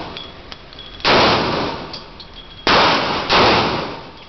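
Three shots from a Smith & Wesson M&P .40 S&W pistol, each echoing and dying away in the indoor range: one about a second in, then a quick pair about half a second apart past the middle. Faint metallic clinks sound between the shots.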